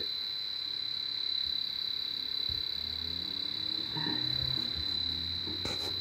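H10 Pro electronic refrigerant leak detector alarming: a steady, high-pitched electronic tone with a rapid pulsing flutter. It is responding to R-134a gas released at its sensor, driven hard by too much gas.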